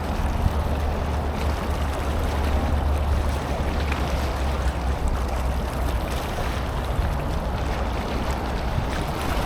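Steady low rumble and hiss of wind buffeting the microphone outdoors, with a few faint ticks.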